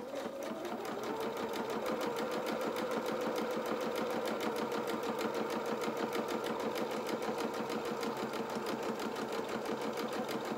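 Small white domestic electric sewing machine running steadily at speed, stitching a wide zigzag through cotton fabric: an even, rapid rhythm of needle strokes.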